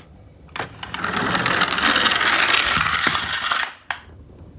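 Geared drive motors of two small toy garbage trucks whirring steadily as the trucks run for a few seconds. The whirring ends with a sharp knock near the end as the trucks hit the baseboard.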